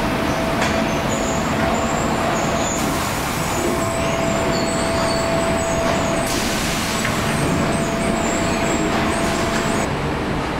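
Palletising and conveyor machinery on a sugar-packing line running: a steady loud mechanical din with a steady whine and a thin high hiss. The high hiss drops away near the end.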